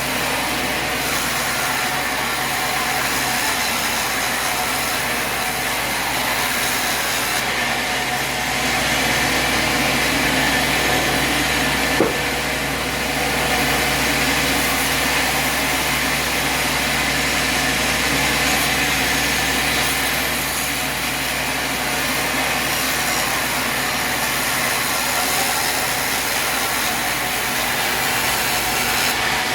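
Portable sawmill's engine running steadily, with one sharp click about twelve seconds in.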